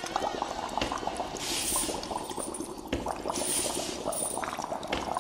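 Packaging being handled and unpacked, rustling and crackling: a dense run of small crackles with hiss.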